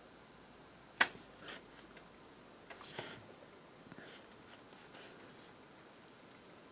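Quiet handling noises from hands working a fine paintbrush and a small figure on its holder: a sharp click about a second in, then a few soft rubbing and tapping sounds.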